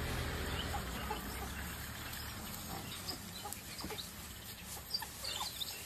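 African wild dogs giving short, high-pitched twittering chirps, scattered and overlapping, the excited calling of the pack.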